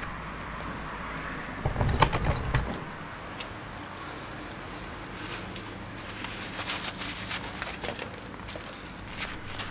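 Metal tools and hardware clinking and rattling while a motorcycle crash bar is bolted on, with a short burst of clanking about two seconds in and scattered sharp clicks in the second half.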